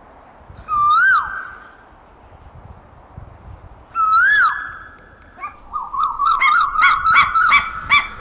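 Asian koel calling: two clear whistled notes about three seconds apart, each rising sharply at the end, then a fast run of short rising whistles that climbs in pitch.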